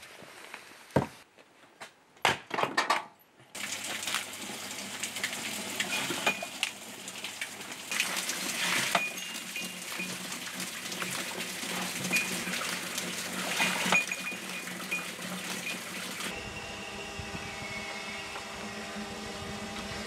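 Split firewood logs knocking and clunking against each other as they are picked up and dropped, several sharp knocks in the first few seconds. Then a steady rushing noise with scattered short squeaks and ticks, and near the end a steady hum from a small motor.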